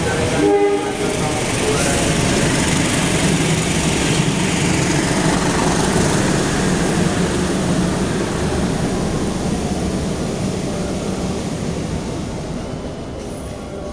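Passenger train running along the station tracks, a loud steady rumble of wheels and running gear that fades over the last few seconds as it pulls away.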